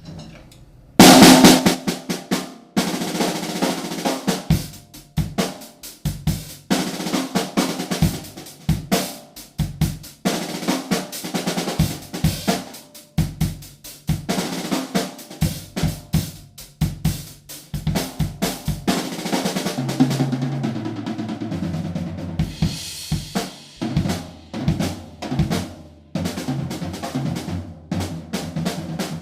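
Drum kit played in a groove with fills across snare, toms and bass drum. The toms carry Aquarian Response 2 heads and the snare has a coated Aquarian Z100 batter over a holed Ludwig bottom head. Cymbals come in near the end.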